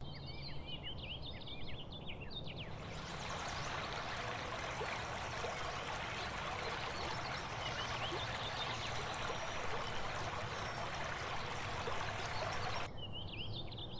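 Birds chirping, joined about three seconds in by the steady rush of running water like a stream. Near the end the water sound cuts off abruptly, leaving only the birdsong.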